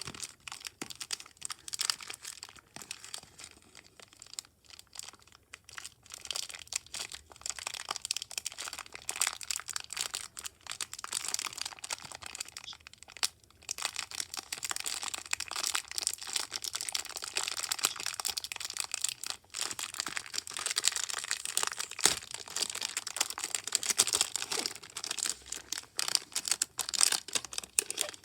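Slime being squeezed and stretched by hand, giving a dense run of small crackles and pops, with a short pause about 13 seconds in.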